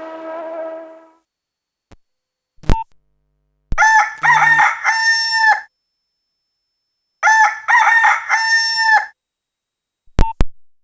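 Nokia 1112 built-in rooster-crow ringtone, heard straight from the phone's earphone output: a crow about four seconds in and again about seven seconds in, each ending on a held note. The last of the previous tone fades out in the first second, and short keypad beeps sound around three seconds in and near the end.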